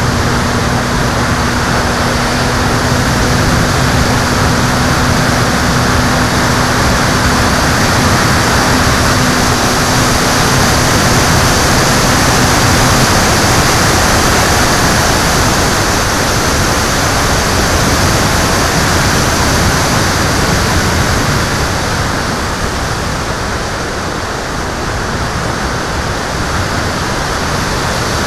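Steady rushing wind noise from airflow over a camera mounted on an aircraft in flight. A faint steady low hum sits underneath and stops about halfway through.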